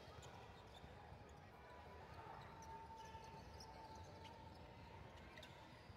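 Faint basketball bounces on a hardwood gym floor, a few scattered thuds over a low steady hum.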